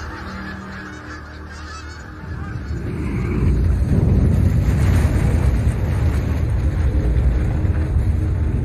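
A flock of birds honking like geese, then a deep rumble that swells from about two seconds in and stays loud.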